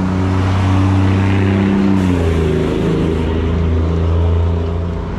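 A motor vehicle's engine runs close by on the street, and its pitch shifts about two seconds in.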